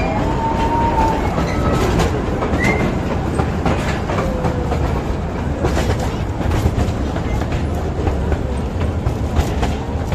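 Small open-carriage joy-ride train running on narrow track, heard from on board: a steady rumble with the wheels clicking over the rail joints.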